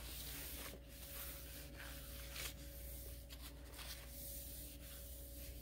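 Paper towel wiping a wooden countertop: faint rubbing strokes, over a low steady hum.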